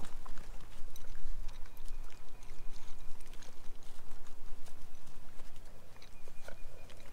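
Great Pyrenees puppies eating dry kibble from shallow bowls: irregular small clicks and rustles of kibble and pine chips, over a steady low rumble.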